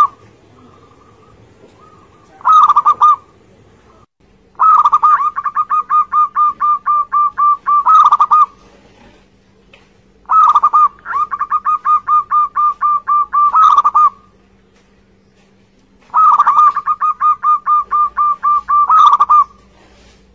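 Zebra dove (perkutut) singing. A short call comes about two and a half seconds in, then three full song phrases, each three to four seconds long. Each phrase is a quick run of short staccato coos, about four a second, ending on a longer note.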